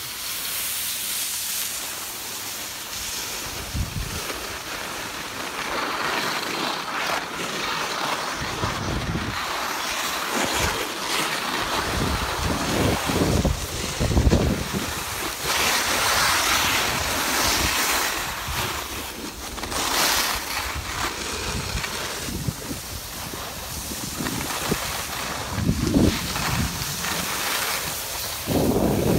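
Wind buffeting the microphone while riding down a snow slope, over a steady hiss and scrape of sliding on snow. Gusts of low rumble come and go, strongest about halfway through and again near the end.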